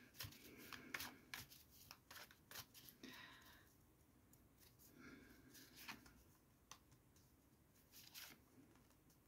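A tarot deck shuffled by hand: a faint run of soft card clicks and slides, busy for the first few seconds and thinning out after.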